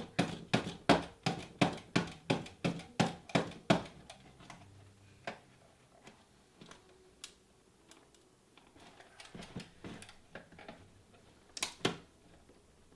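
A saw cutting into a trail camera's casing, about three quick strokes a second for the first four seconds. Then fainter scattered clicks and handling, with two sharp clicks near the end.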